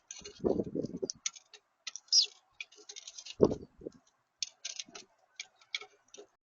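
Small birds at a feeder: a rapid, irregular run of light clicks and taps, like seeds being pecked and cracked, with a short high chirp about two seconds in and a couple of dull bumps against the feeder.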